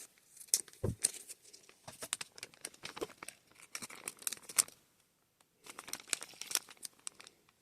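Plastic packaging crinkling as it is handled and opened, in short scattered crackles, with a brief pause about five seconds in.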